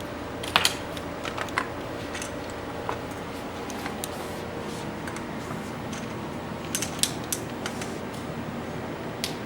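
Scattered light clicks and clinks of small metal bicycle headset parts being handled and fitted onto a mountain bike's steerer, with a small cluster of them about two-thirds of the way through.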